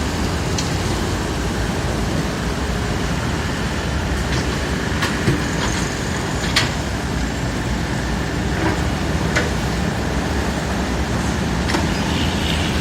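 Komatsu PC78 excavator's diesel engine running steadily, with a few sharp metallic clanks scattered through.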